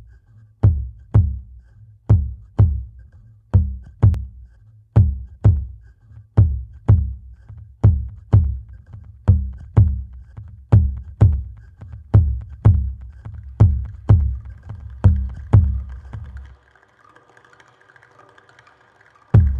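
Experimental music on a self-built instrument: deep, booming percussive strikes in pairs, about one pair every second and a half, each ringing briefly. Near the end the strikes stop, leaving a faint sustained drone of higher tones, then the strikes resume.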